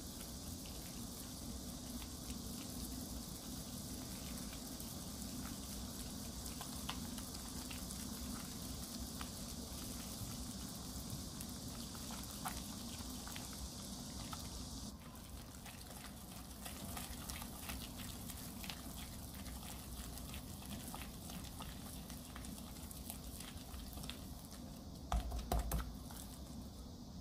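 Silicone whisk stirring a thick rouille paste in a glass bowl, with light irregular clicks and scrapes against the glass, as olive oil is whisked in a little at a time to emulsify the sauce. A couple of louder knocks come near the end.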